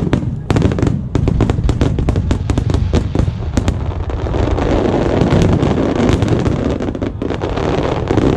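Fireworks display: rapid crackling of many small bursts over deep booms, merging about halfway through into one continuous dense crackle.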